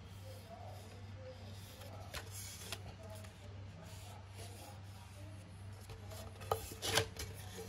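Handling noise from a frying pan and its cardboard label: fingers rubbing and brushing over the card, a few soft clicks, and two sharper knocks near the end as the pan is turned and lifted. A low steady hum runs underneath.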